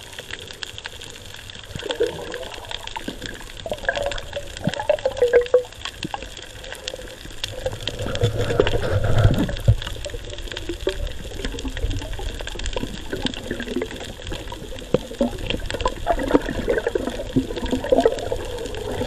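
Underwater water noise heard through a waterproof camera housing: sloshing and rumbling with irregular bubbly gurgles and scattered clicks and knocks as the diver moves. A low rumble swells about eight to nine seconds in.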